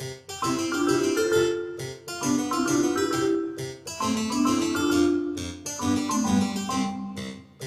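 Background music on a keyboard instrument, in phrases of quick struck notes that start roughly every two seconds.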